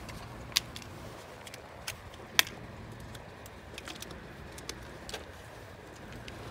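Plastic bleach jugs being handled and their screw caps opened: scattered sharp plastic clicks and knocks, the loudest about two and a half seconds in, over a faint steady background.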